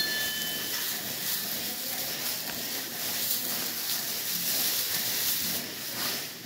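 Loose straw bedding rustling and crackling steadily as it is shaken out and spread around cows in a barn stall, with a brief ringing tone at the very start.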